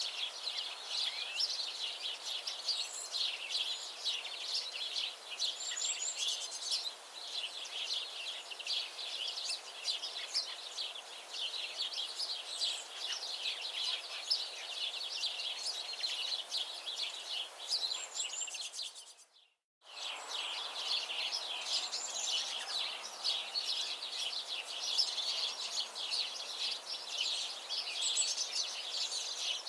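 A dense chorus of many birds chirping and singing, with rapid overlapping high chirps and trills. About two-thirds of the way through it fades out to silence for a moment, then starts again at the same density.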